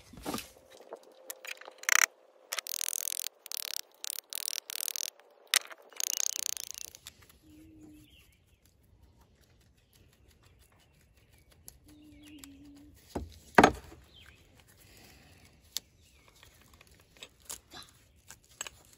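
The old rotten leather washers and spacers of an Estwing hatchet handle scraping and clicking as they are twisted and worked off the steel tang by hand. A dense run of scraping and clicks fills the first several seconds, then it goes quieter, with scattered small clicks and one sharp knock a little past halfway.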